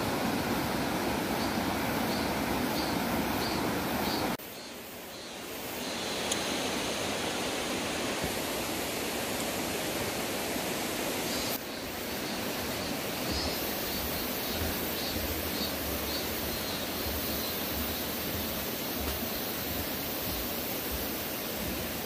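Mountain stream flowing over rocks: a steady rush of water. It drops suddenly about four seconds in, comes back up, and shifts again a little before halfway.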